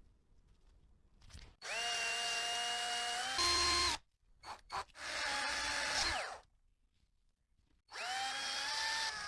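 Small electric power tool running in three separate bursts of a couple of seconds each, each a steady whine. In the first the pitch steps up partway through; the second winds down in pitch as it stops, and the third starts near the end.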